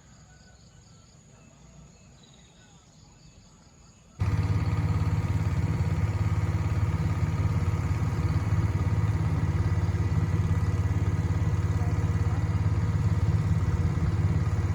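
Faint background for about four seconds, then an engine running steadily cuts in abruptly, with a strong low rumble and a steady hum of several pitches above it.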